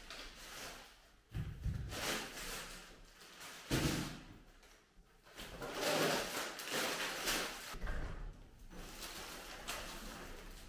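Groceries being handled and put away: a few dull knocks, about a second and a half, four and eight seconds in, among noisy handling sounds.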